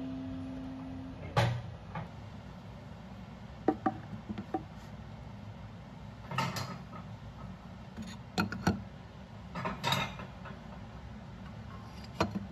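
Scattered light clicks and knocks, about eight of them spread unevenly, over a steady low hum. In the first second a guitar note dies away.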